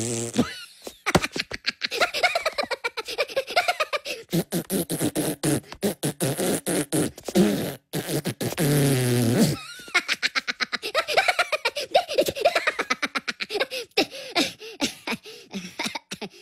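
A person's voice making sputtering, raspberry-like "prrr" mouth noises in rapid runs, with held pitched vocal sounds twice.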